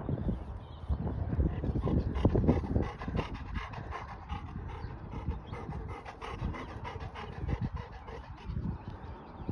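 A dog panting close by, louder in the first three seconds and fainter after.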